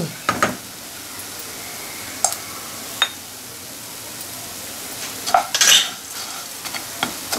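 Wooden spatula stirring coriander seeds and whole spices roasting in a non-stick wok: scattered scrapes and rattles of seeds against the pan, the longest run of scraping about five and a half seconds in, over a faint steady hiss.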